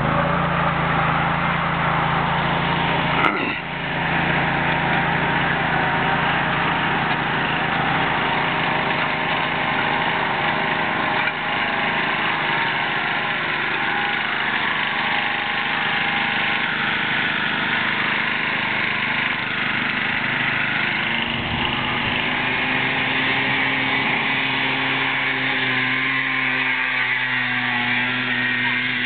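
Lawn tractor engine running steadily, with one sharp click about three seconds in.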